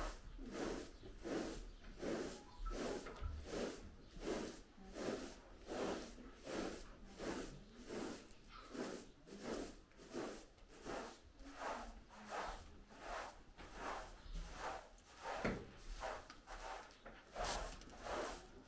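Short-handled straw broom sweeping carpet: quick, even swishing strokes, about three every two seconds.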